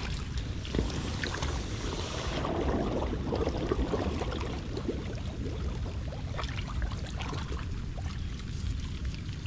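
Shallow, muddy running water sloshing and trickling as someone wades and works in it, with scattered small splashes and knocks. A brighter hiss of water runs for the first two seconds or so and then drops away.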